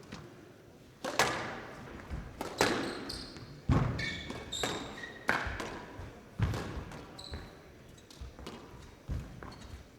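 Squash rally: rackets striking the ball and the ball smacking off the court walls, about once every second or so, with shoes squeaking sharply on the court floor between shots.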